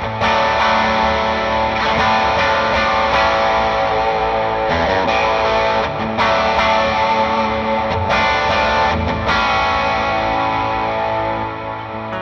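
Overdriven electric guitar playing sustained, ringing chords with modulation and ambient effects, heard through a York Audio Matchless 2x12 cabinet impulse response (the SM7-mic'd IR) on an amp modeller. The chords change about six, eight and nine seconds in, and the playing eases off near the end.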